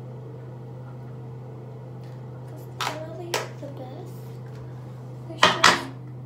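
Steady low hum of a bathroom ceiling exhaust fan. About three seconds in there are two small clicks from handling the cream jar, and near the end two loud knocks as hands bump the recording phone.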